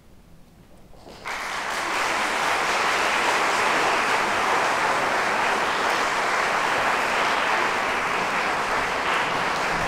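Audience applause breaking out suddenly about a second in after a brief hush, then continuing steadily.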